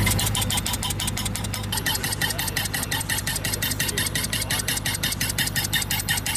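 Vermeer Hole Hammer pneumatic piercing tool starting up as its air is turned on, settling after about two seconds into fast, even hammering of about six or seven blows a second, with a steady engine hum underneath.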